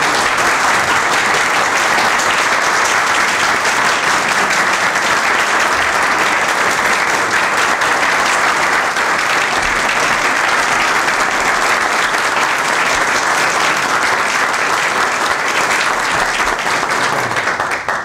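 Sustained applause from a room of people clapping steadily, ending abruptly near the end.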